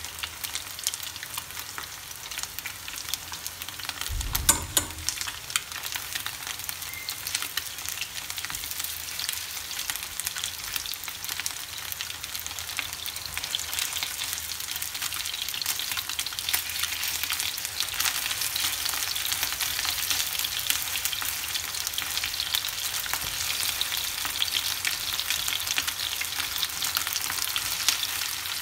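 Flour-coated chicken wings shallow-frying in hot oil over high heat in a nonstick frying pan: a steady sizzle that slowly grows louder, with one low thump about four seconds in.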